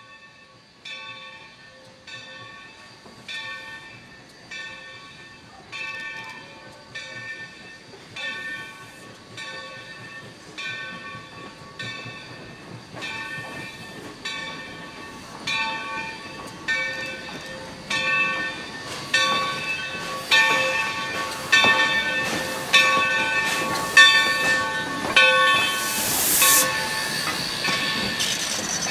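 Steam locomotive's bell ringing in a steady beat, about one stroke every 1.2 seconds, growing louder as the engine draws near. A short hiss of steam comes near the end.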